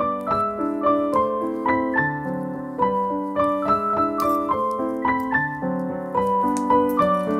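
Background piano music: a melody of evenly paced single notes over held lower notes.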